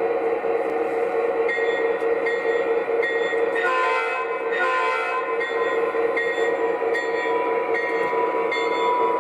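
Sound system of an O gauge Conrail GP30 model diesel locomotive: the diesel engine sound runs steadily under a bell ringing at an even pace, with two short horn blasts around four seconds in, the signal to move forward, before the locomotive pulls away.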